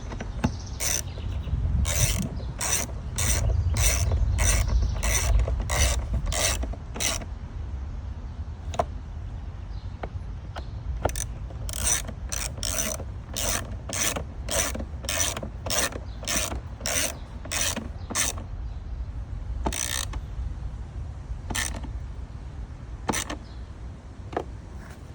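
Hand ratchet clicking about twice a second in two runs of several seconds, then a few single clicks near the end, as screws are run down and tightened.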